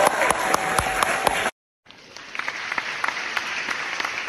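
Audience applause with dense clapping, broken by a brief silence about a second and a half in, then more applause with a duller sound.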